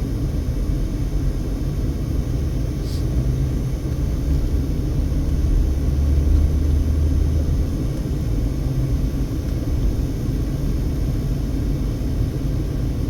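Steady low rumble of a car's engine and tyres, heard from inside the cabin while driving slowly, swelling slightly about six seconds in.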